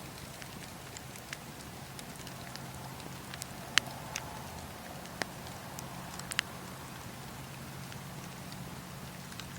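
Wood fire in a fireplace crackling, with scattered sharp pops, the loudest about four seconds in, over a steady low hum.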